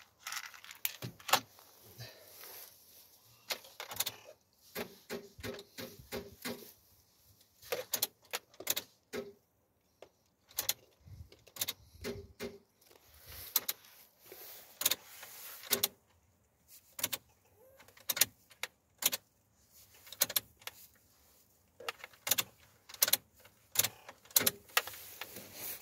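Irregular clicks and rattles from handling the ignition key and controls in a truck cab while the engine does not start; no engine is running.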